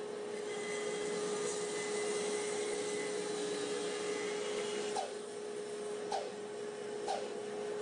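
Bandsaw running with a steady hum as its blade rips a board along the fence, with the cutting noise heavier for the first few seconds. After that the saw runs on more lightly, with a faint click about once a second.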